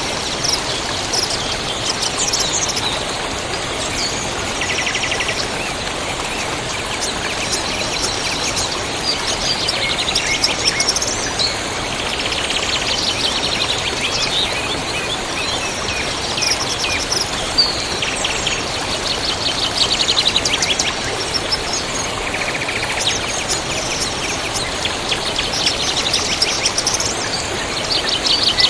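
Several songbirds chirping and trilling over the steady rush of a river.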